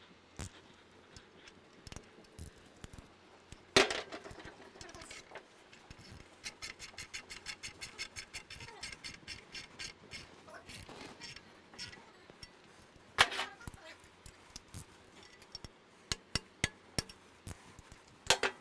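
Hand tools tightening engine protection bar bolts to torque: a metallic clink, then a run of quick ratchet clicks at about six a second, a single sharp click partway through and a few more sharp clicks near the end.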